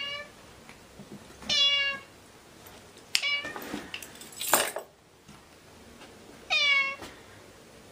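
Orange tabby cat meowing three times, short calls that drop in pitch at the end, after the tail of an earlier meow at the very start. A brief noisy scuff comes about halfway through, between the second and third meows.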